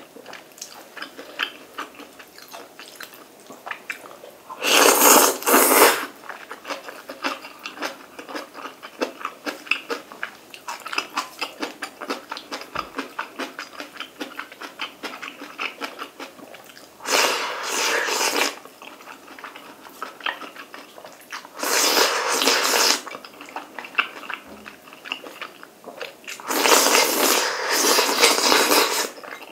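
Close-miked eating of black bean sauce ramen: continuous wet chewing and lip-smacking, broken by four loud slurps of noodles and sauce, the last and longest near the end as the bowl is lifted to the mouth.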